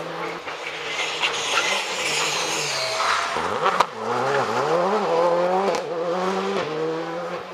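Rally car engine slowing into a hairpin, its pitch dropping and jumping back up several times through downshifts, then revving as it accelerates out of the bend. A single sharp crack comes a little under four seconds in.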